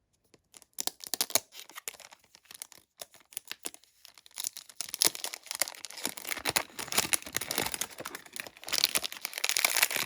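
Packaging of a perfume box crinkling and tearing as it is unwrapped by hand. Irregular crackles run throughout, sparse for the first few seconds and denser from about halfway.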